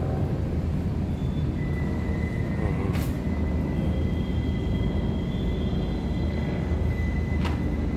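Steady low rumble of traffic. A faint, thin, steady high whine runs through most of it, and there is a single sharp click about three seconds in.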